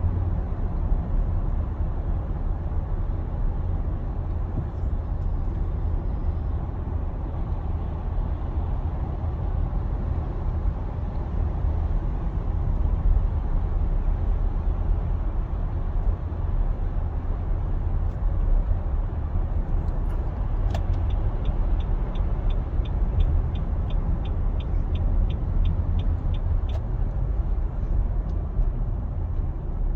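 2021 Nissan Armada's 5.6-litre V8 running with a steady low drone: the loud engine noise the owner is concerned about. About two-thirds of the way through, a light, regular ticking, close to three ticks a second, runs for about six seconds.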